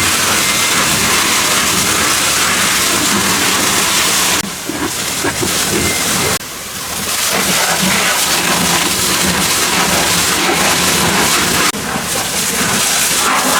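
Steady loud hiss of a high-pressure water jet spraying the car, easing off briefly about four and a half seconds in, again a couple of seconds later, and once more near the end.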